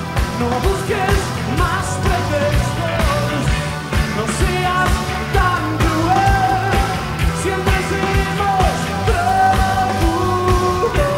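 Live rock band playing: sung vocals with long held notes over electric guitar and a steady drum beat.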